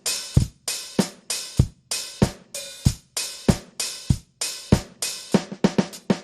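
Electronic drum kit with a dbdrums db10 V3 sound module playing a steady beat: bass drum and snare alternating, with hi-hat and cymbal sounding on the strokes, about two hits a second.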